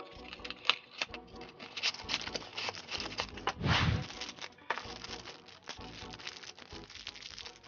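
Cardboard box being opened and a plastic bag of toy parts pulled out and handled quickly: a rapid run of clicks, taps and rustles, with a loud crinkling rush about three and a half seconds in.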